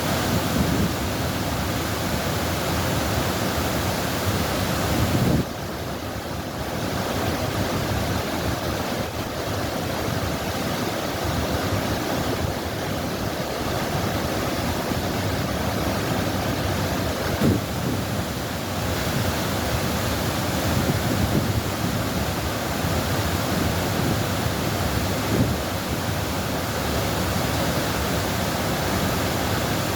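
Continuous rushing water, a steady even wash of sound that drops slightly in level about five seconds in.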